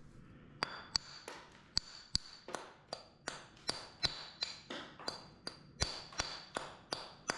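Mason's hammer striking a hand-held fieldstone in a steady run of sharp taps, about three a second, each with a brief metallic ring, trimming the stone to shape.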